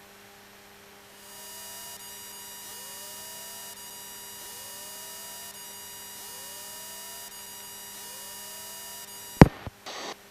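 Radio static heard through the aircraft's intercom: a steady hiss with faint fixed tones and a rising whistle about every two seconds. It cuts off suddenly near the end, followed by a sharp click.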